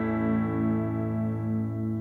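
Live band's held final chord, led by guitar, ringing out and slowly fading. Its tone pulses evenly, about three times a second.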